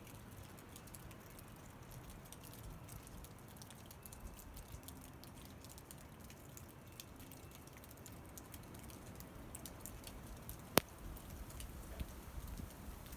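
Falling snow pattering faintly as many small, irregular ticks over a low rumble, with one sharp click about eleven seconds in.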